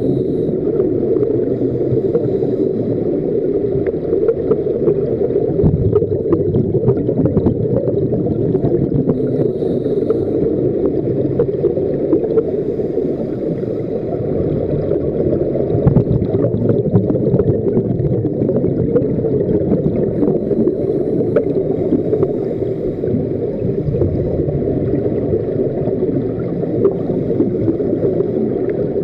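Muffled, steady rushing of scuba divers' exhaled bubbles and regulator breathing, recorded underwater, with scattered small clicks.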